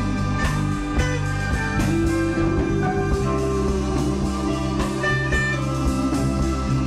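Rock band rehearsal recording in an instrumental stretch between sung lines: guitar to the fore over bass and drums, with notes held steadily.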